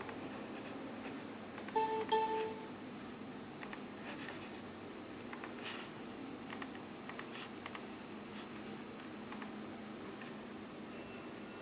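Scattered light clicks, with a short pitched tone sounding twice in quick succession about two seconds in.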